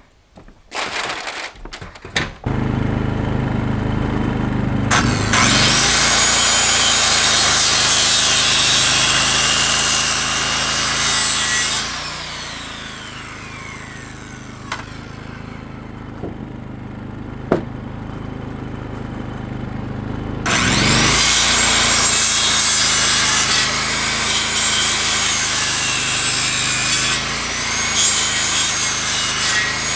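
Power saw cutting wood in two long runs. The first winds down with a falling whine about twelve seconds in; the second starts up again about eight seconds later.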